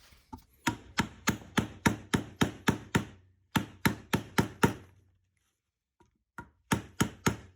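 Mallet tapping a seal insertion tool to drive a dust seal down into a suspension fork's lower leg: quick even knocks, about three a second, in three runs with short pauses between.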